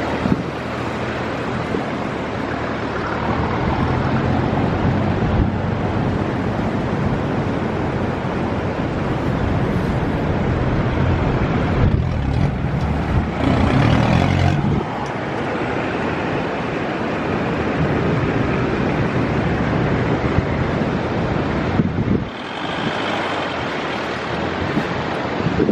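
A four-wheel drive's engine running as it drives, with wind buffeting the microphone. The sound shifts abruptly twice, partway through and near the end.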